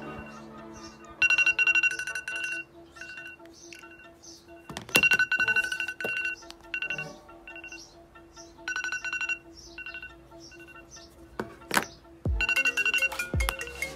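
A mobile phone's electronic ringtone: bursts of a rapid two-pitch trill that repeat every few seconds over a steady low tone, with a couple of sharp clicks late on.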